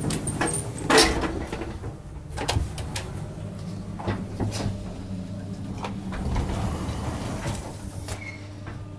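Train gangway doors between coaches being opened and passed through: a sharp bang about a second in, then a run of lighter knocks and clatters, over the steady low hum of the train.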